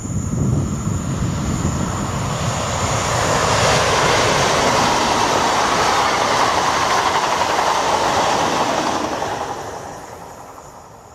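PKP InterCity passenger train passing the platform: an even rush of wheels on rail that builds over the first few seconds, holds, then fades away as the train leaves.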